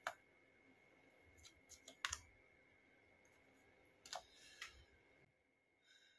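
Tarot cards being handled and laid on the table: a handful of sharp taps and flicks, the loudest about two seconds in, and a quicker cluster of card clicks around four seconds in.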